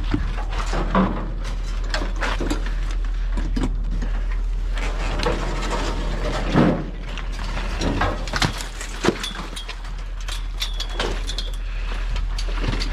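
Scrap metal being handled and loaded, a run of knocks and clanks with the loudest bang about six and a half seconds in, over a steady low hum.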